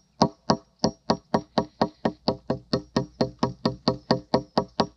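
Hammer blows in quick, even succession, about four to five a second, each a sharp knock with a short ring.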